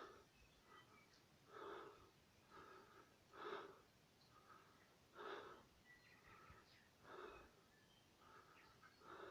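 Faint, slow breathing: a soft breath sound about every two seconds, six in all, over near silence.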